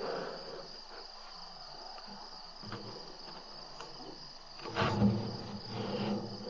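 Steady high chirring of crickets in a night insect chorus, with a couple of louder dull bumps and rustles near the end.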